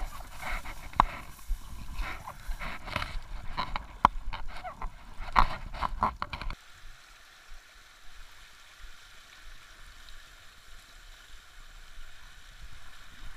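Rustling and knocking as a person pushes through tall waterside grass and steps into the water. About six and a half seconds in, the sound changes abruptly to the steady rush of a shallow river flowing over stones.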